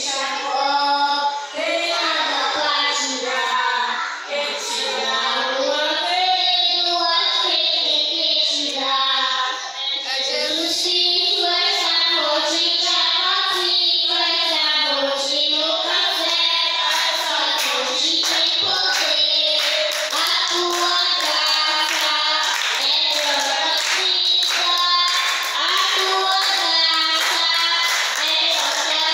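A child singing a Christian gospel song in Portuguese, a melodic line that carries on without a break. From about halfway through, a regular beat of sharp taps joins the singing.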